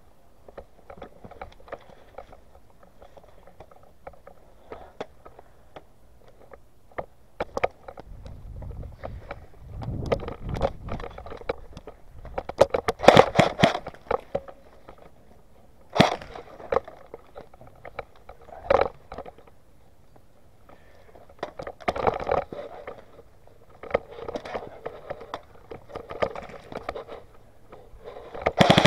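Footsteps on gritty concrete and the rustle and knock of clothing and gear close to a body-worn microphone, in scattered crunches and scrapes with louder clusters around the middle. Right at the end a rapid burst of automatic airsoft fire begins.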